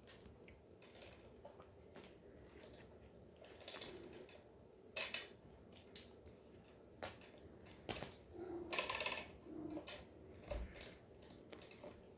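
Scattered light clicks, taps and scratching scrapes, as of Maine Coon kittens moving and playing about on hard surfaces. The louder scrapes come about five seconds in and again around nine seconds in, followed by a soft thump.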